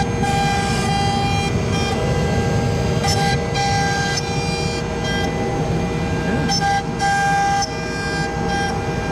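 Axiom Pro-8 CNC router cutting wood: a steady spindle whine over running noise, with higher motor tones that switch on and off every second or so as the machine changes its moves.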